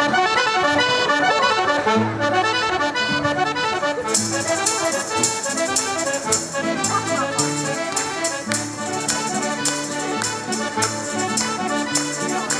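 Two accordions and an acoustic guitar playing a lively traditional folk tune as an instrumental introduction. A crisp, steady rhythmic beat joins about four seconds in.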